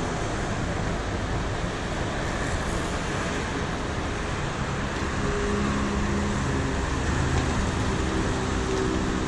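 Steady road traffic noise, with the low hum of a vehicle engine coming in about halfway through.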